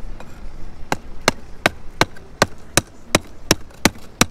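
Hammer striking a locked metal money box pulled up by a magnet, a steady run of sharp blows about three a second, starting about a second in.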